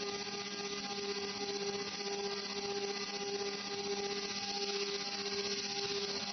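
Haas VF-2 vertical machining center's spindle running an end mill through a metal block: a steady whine with a few brief dips, over an even hiss.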